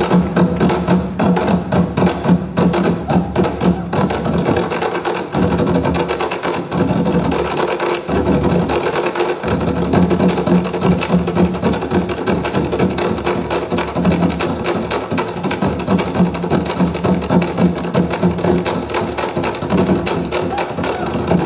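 An ensemble of six drummers beating large stick-struck drums together in a fast, dense, driving rhythm, ringing in a concert hall.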